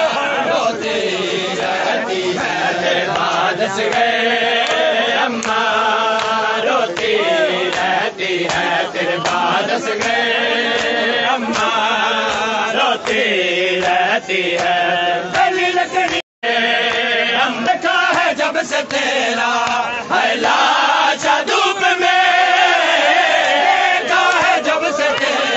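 Men chanting a nauha (Shia mourning elegy) together, with sharp slaps of hands striking chests (matam) mixed in. The sound cuts out for a split second about sixteen seconds in.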